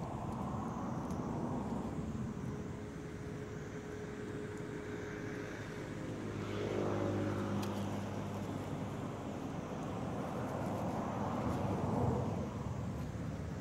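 Outdoor background noise with a passing motor vehicle: an engine hum swells and fades about halfway through, and rises again near the end.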